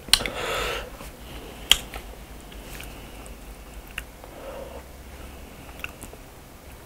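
Quiet eating sounds at the table: a few sharp, separate clicks of wooden chopsticks as a leaf wrap of pig's trotters is put together, with a short sniff through the nose about half a second in.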